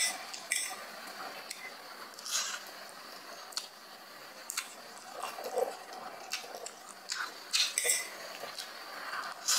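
Close-up eating sounds: a person slurping and chewing instant noodles, with a metal fork clinking against a small ceramic plate, in short separate bursts every second or so.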